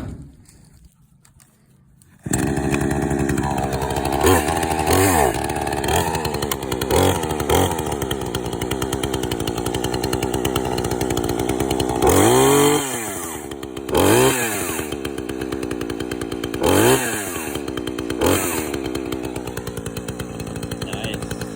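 A gas chainsaw starts about two seconds in and runs, with the throttle blipped several times so the engine revs up and falls back to idle.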